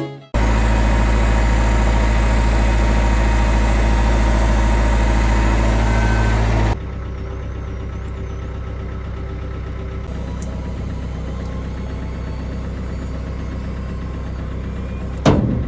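An engine running steadily at a constant speed, heard in two cut-together stretches: a louder one for the first seven seconds or so, then a quieter one. A brief louder sweep comes near the end.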